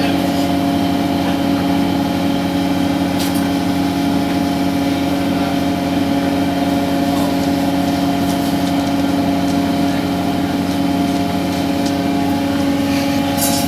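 Machinery aboard a longline fishing boat running with a steady, unchanging drone. A few short clicks or knocks sound about three seconds in and again near the end.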